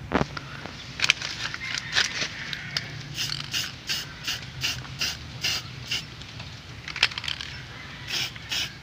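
Aerosol spray-paint can spraying in short bursts, a quick hiss about twice a second.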